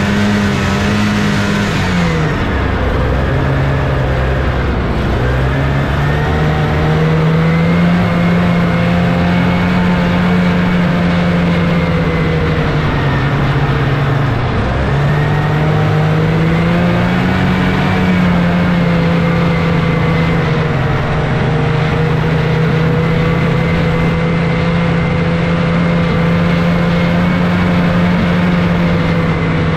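1979 Scorpion Whip snowmobile's Cuyuna 440 two-stroke twin engine running under way. Its pitch drops as the machine slows about two seconds in, then climbs back. It dips again about halfway through, rises, and then holds steady.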